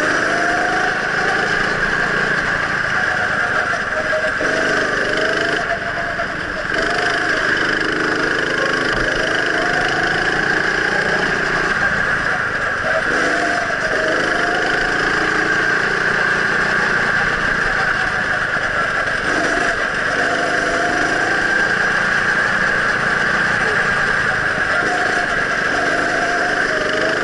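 Go-kart engine heard from the driver's seat while lapping, its revs climbing and falling off again several times as the driver lifts for the corners.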